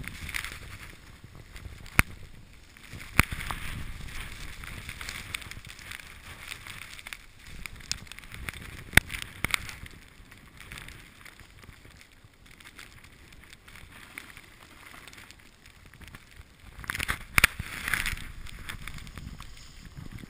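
Snowboard sliding and scraping over snow in a storm, with wind rumbling on the microphone. The hiss swells and fades, and sharp knocks come about 2 and 3 seconds in, again around 9 seconds, and in a cluster near the end.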